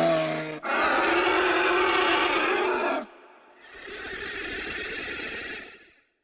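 Creature sound effects for a juvenile Tyrannosaurus rex: the brief end of a pitched call, then a loud, rasping growl lasting about two seconds, then a quieter breathy hiss that fades out near the end.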